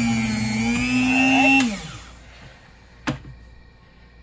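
Electric deli meat slicer's motor and spinning round blade running with a steady hum while slicing roast beef, its pitch dipping briefly. About a second and a half in it winds down and stops, and a single knock follows about three seconds in.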